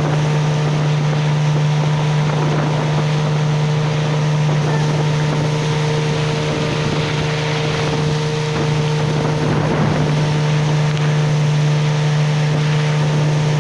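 Outboard motor of a small river boat running at a steady, unchanging pitch. Water rushes along the hull and wind buffets the microphone.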